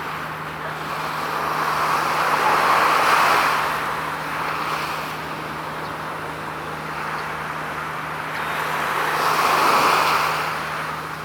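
Two road vehicles passing one after the other, each rising and fading away, over a steady low hum.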